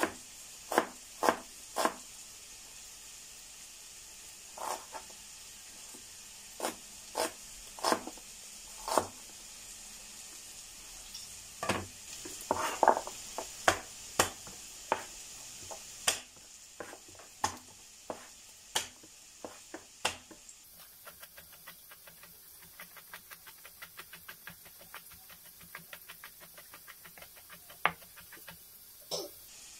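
Kitchen knife striking a plastic cutting board as onion is sliced and garlic crushed and minced: irregular sharp knocks, then from about twenty-one seconds in a run of quick, light, even chopping strokes. A steady faint hiss runs underneath.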